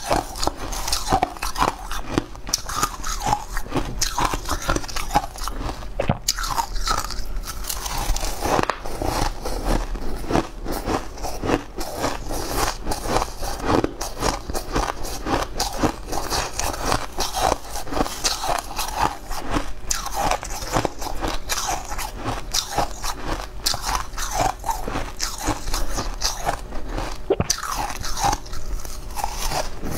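Chewing and crunching mouthfuls of crushed ice, close to the microphone: a dense, continuous crackle of breaking ice.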